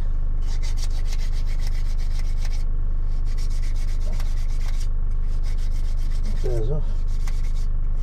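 Small hand file rasping across the edge of a freshly cut brass key in four runs of rapid strokes, deburring the cut. A steady low hum runs underneath.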